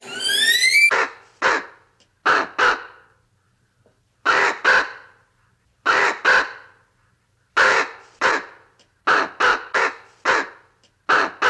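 A crow cawing: short harsh caws, mostly in pairs a second or two apart, with a quicker run of four near the end. A rising high whistle comes first, in the opening second.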